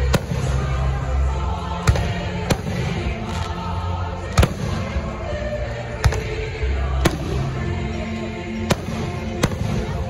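Aerial firework shells bursting overhead: about seven sharp bangs at uneven intervals, over music playing.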